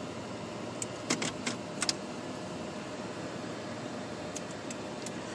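Steady outdoor background hiss with no rumble, and a few light clicks and a short rattle about one to two seconds in.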